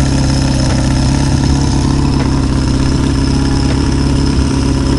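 Classic Honda four-cylinder motorcycle engine idling steadily while its carburetors are vacuum-synchronized.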